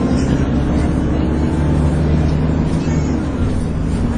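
Dennis Trident 2 double-decker bus's engine and driveline running, a steady drone with the vacuum-cleaner-like whine that enthusiasts call 'hoovering'. The drone eases off about three seconds in.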